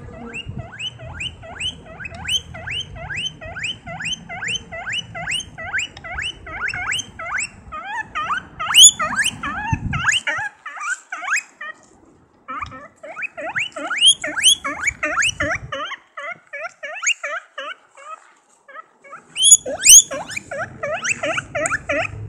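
Guinea pig squeaking loudly, a rapid run of short rising squeaks at about three a second. It breaks off twice briefly, and the squeaks are loudest a third, two thirds and most of the way through.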